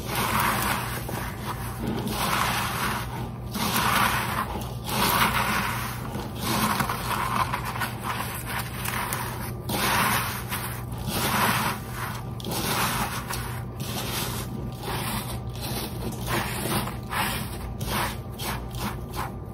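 Ritz crackers crushed by hand in a bowl: a crunching, scraping rustle with each squeeze, repeating about once a second.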